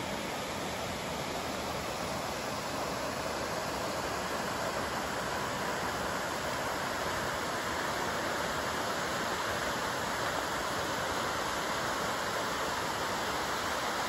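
Steady rushing of a small waterfall and the shallow rocky stream below it: an even, unbroken wash of water noise that grows slightly louder a few seconds in.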